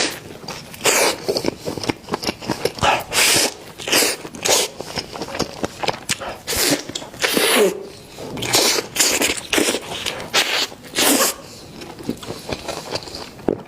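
Close-up eating sounds of chicken bones being bitten and chewed: loud, irregular crunches and smacks, one or two a second.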